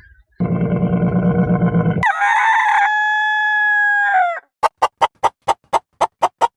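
A low, rough animal call, then a rooster crowing: one long call held at a steady pitch that drops away at the end. A rapid run of short clucks follows, about five a second.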